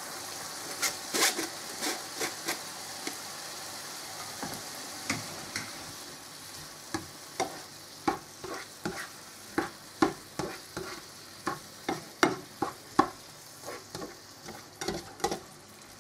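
Green beans being stirred into tomato sauce in a non-stick frying pan with a plastic spatula: a steady sizzle from the pan, with the spatula knocking and scraping against it in irregular taps that come more often in the second half.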